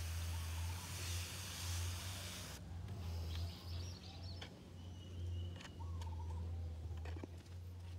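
Hand-pump pressure sprayer misting water with a steady hiss that cuts off sharply about two and a half seconds in. After it stops, birds chirp a few times over a steady low hum.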